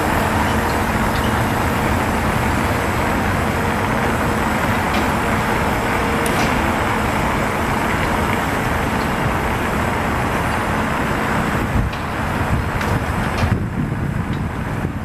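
Steady rushing vehicle-engine and traffic noise with a faint low hum underneath; the higher part of the hiss falls away suddenly near the end.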